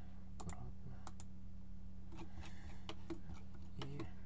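Scattered computer mouse and keyboard clicks over a steady low electrical hum.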